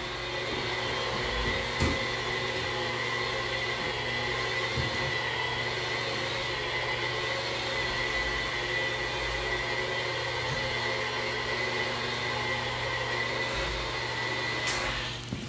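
DeWalt rotary polisher with a 3M 4100 Super Shine pad running steadily against shower glass, buffing hard-water spots off with polishing compound; a steady motor whine that stops near the end.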